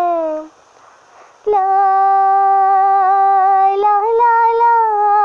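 A girl's voice singing unaccompanied. It ends a held note, pauses for about a second, then holds one long wordless note that steps up slightly about halfway through.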